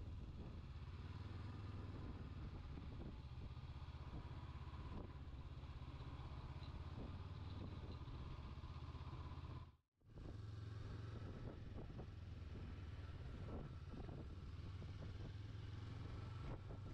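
Honda CB500X's parallel-twin engine running steadily as the motorcycle is ridden. The sound drops out abruptly for a moment about ten seconds in, then resumes.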